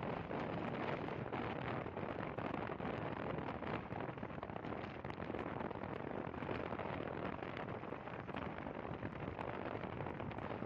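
Steady rush of wind over the microphone and road noise from a motorcycle riding along at speed, an even noise with no distinct events.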